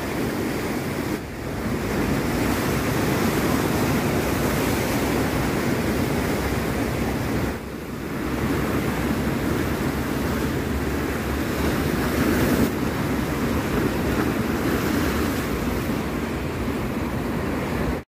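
Rough sea surf: waves breaking and washing over concrete breakwater blocks in a steady, continuous rush, with two brief dips.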